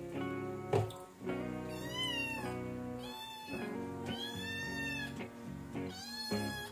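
Small kitten meowing four times while being bathed, high-pitched cries that rise and fall in pitch; the third cry is the longest. Background guitar music plays under the cries.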